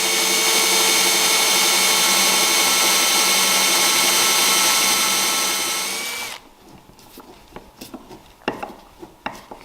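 A power tool running at a steady high speed, then switched off and spinning down about six seconds in, followed by scattered light knocks and taps.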